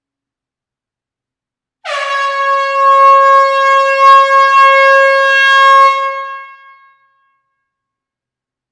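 Air horn blowing one long, steady blast in an enclosed hall. It starts about two seconds in and tails off after some four to five seconds.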